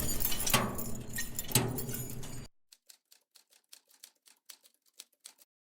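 Background noise with a few sharp knocks, then a quick run of sharp typewriter-like clicks, about five a second, against near silence.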